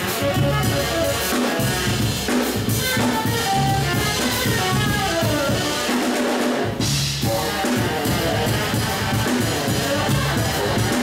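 Saxophone, electric bass and drum kit playing live together, the saxophone carrying the melody over a steady drum groove. About six seconds in the bass and drums drop out for a moment, then the whole band comes back in.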